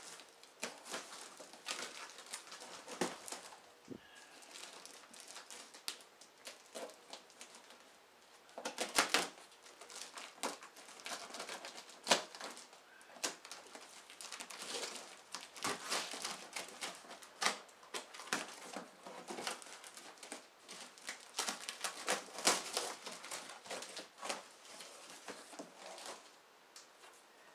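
A cardboard box being cut open: a blade scraping and slicing through packing tape, tape tearing, and the cardboard flaps and packing crinkling as they are pulled open. The sound comes as many short, irregular scratches and snaps.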